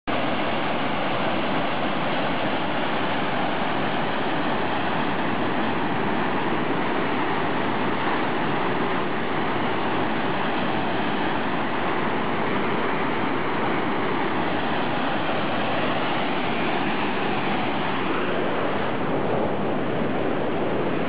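Waterfall plunging down a narrow rock gorge: a steady, unbroken rush of falling water.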